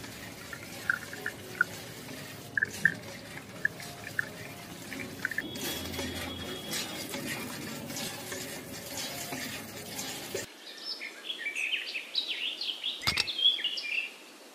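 Water trickling and gurgling out of a miniature hand pump's hose into a toy tanker, with small drips and splashes. About ten seconds in, the sound cuts to a quieter stretch of short high chirps.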